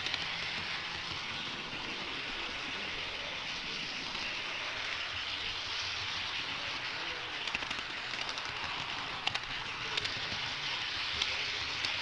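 HO-scale model train's metal wheels rolling along the track, a steady hiss with small sharp clicks scattered through the second half as the wheels cross rail joints and turnouts.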